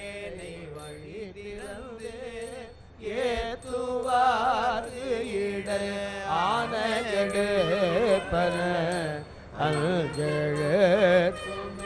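Hindu priests chanting Sanskrit mantras in a melodic, wavering sing-song recitation for the homa fire offering, with a steady low held note under it and two short pauses.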